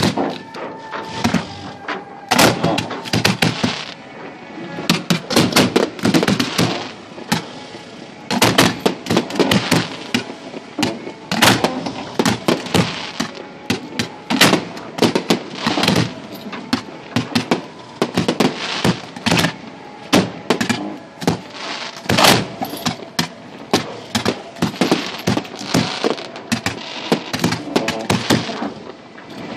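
Fireworks launched at close range: rockets and shells firing and bursting in a dense, continuous barrage of sharp bangs, several a second.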